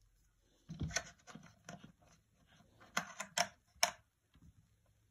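Handling noises: a scatter of light clicks and knocks about a second in, then a tighter cluster of sharper clicks about three to four seconds in.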